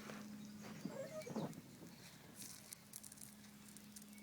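Faint crackling and sizzling from a burning cardboard boat smoldering on the water, as light scattered crackles over a steady low hum.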